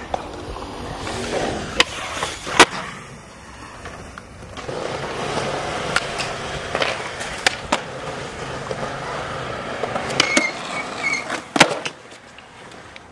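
Skateboard wheels rolling on smooth concrete, a steady grinding roar, broken several times by sharp clacks of the board striking the ground, the loudest about two and a half seconds in.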